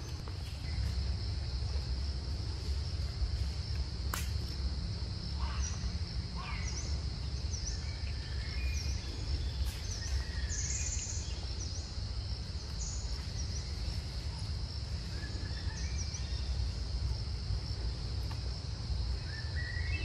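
Forest ambience: a steady high-pitched drone of insects, with many short bird chirps scattered through it over a low rumble.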